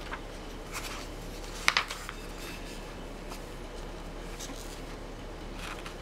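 Pages of a large picture book being turned: a few short paper rustles, the loudest a sharp crackle a little under two seconds in.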